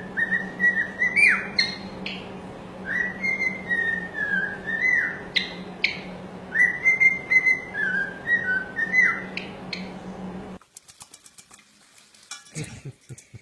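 A pet bird whistling a tune: a run of clear whistled notes, some sliding up or down, over a steady low hum. It cuts off about ten and a half seconds in, leaving only faint scratches and clicks.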